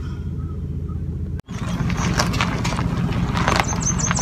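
Steady low vehicle-engine rumble, heard first inside the truck's cab and then, after a cut, outdoors as the truck brings a boat trailer to the ramp, with scattered light clicks. Near the end a bird sings a quick run of high, falling chirps.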